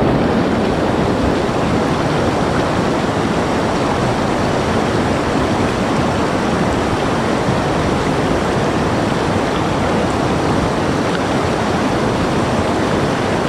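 Steady rush of a fast-flowing, snowmelt-fed river.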